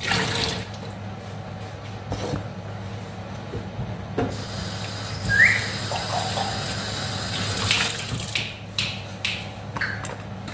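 Kitchen tap running into a sink, with scattered knocks and clatter of things being handled, more of them near the end, over a steady low hum.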